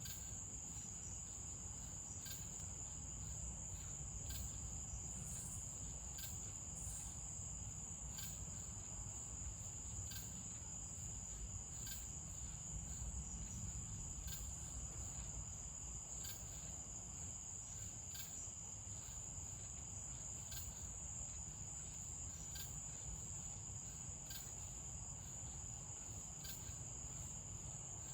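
Crickets trilling in a steady, unbroken high-pitched drone, with a fainter regular tick about once a second and a low rumble underneath.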